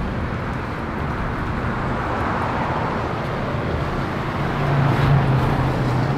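Street traffic running steadily, with a vehicle's engine hum growing louder about four to five seconds in as it passes close by.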